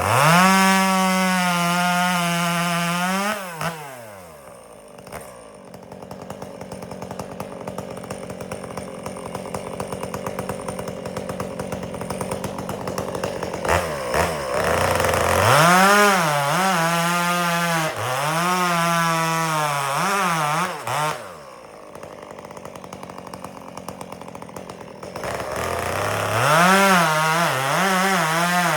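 Two-stroke chainsaw bucking firewood: it runs at full throttle, drops back to a low idle for several seconds, then opens up again twice. In the later cuts the pitch sags and recovers repeatedly as the chain bites into the log.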